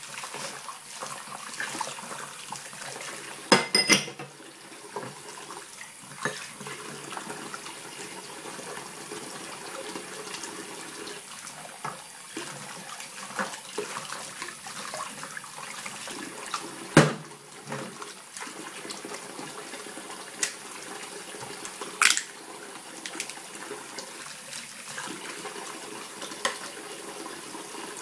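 Kitchen tap running steadily into a metal saucepan in a stainless-steel sink while dishes are rinsed by hand. Glasses and pots knock and clink now and then: a short ringing cluster about four seconds in, a loud knock a little past halfway, and a sharp clink a few seconds later.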